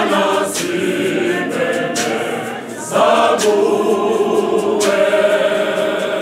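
A church choir of men and women singing together in full voice, with a loud new phrase coming in about three seconds in.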